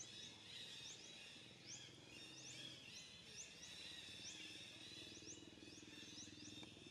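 Faint outdoor ambience with birds chirping: many short, rising high-pitched chirps come a little under a second apart over a steady high background.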